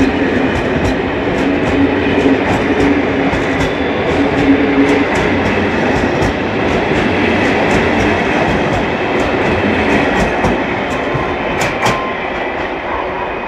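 Passenger coaches of a departing train rolling past at low speed, their wheels clicking over rail joints over a steady rumble. A low hum stops about five seconds in, and the sound eases a little near the end as the last coach pulls away.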